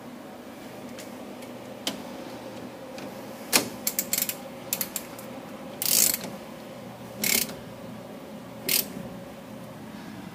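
Ratchet wrench clicking in three short bursts as it turns the screw of a puller on a Dana 44 front-axle stub shaft, after a few sharp metal clinks. A steady low hum runs underneath.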